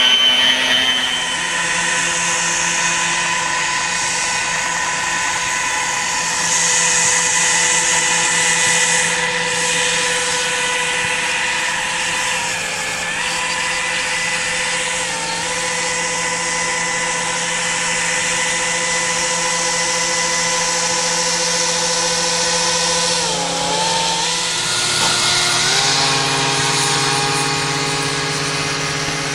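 Radio-controlled model boat motor running with a steady whine that dips briefly in pitch three times, then settles lower near the end.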